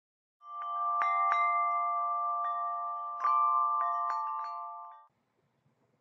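Short intro sting of chimes: a held cluster of bell-like tones with a scattering of light strikes over it, fading out about five seconds in.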